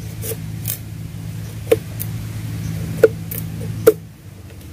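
Knife blade striking and splitting a thin green bamboo stick into slats: a handful of sharp cracks at irregular intervals, the loudest three spread through the second half. A steady low hum runs underneath and fades out near the end.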